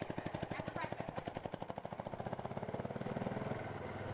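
Buell motorcycle engine running as the bike pulls away and rides off down a gravel driveway, its exhaust a rapid, even chugging.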